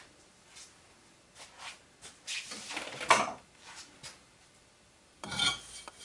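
Handling noises around the steel lever pipe of a barrel vise and action wrench setup: scattered rustles and knocks, with a louder clatter about three seconds in. Near the end comes a brief metallic scrape with a ringing edge as the pipe is grabbed.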